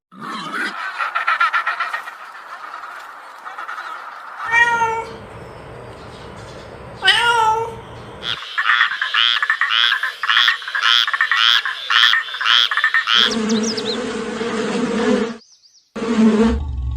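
A run of short animal-call clips cut one after another, among them cat meows: two sliding calls in the middle, then a quick series of repeated calls, then lower calls near the end.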